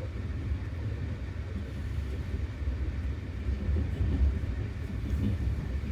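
Steady low rumble of a moving passenger train, heard from inside an open-plan sleeper carriage.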